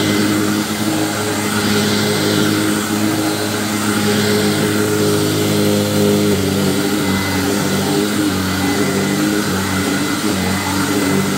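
Hoover WindTunnel self-propelled upright vacuum cleaner running steadily, its motor hum shifting slightly about six seconds in.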